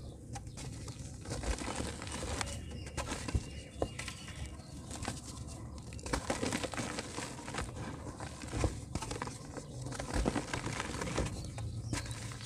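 Dry, dusty mud crumbling and breaking apart into water: a run of irregular small crackles and soft knocks over a low rumble.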